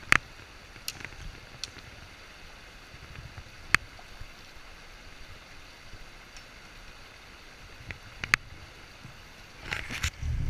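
Steady rush of a shallow, rocky stream flowing over stones and riffles. A few sharp clicks stand out, and a short low rumbling burst comes near the end.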